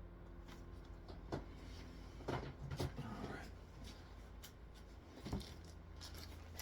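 Scattered light clicks and knocks of hard plastic CGC comic slabs being handled and set down, about five in all, over a low room hum.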